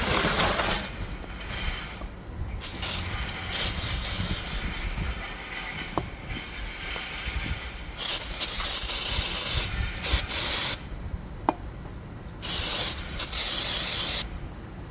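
Aerosol can of brake cleaner spraying in about four separate hissing bursts, each one to three seconds long, with a few light clicks between them.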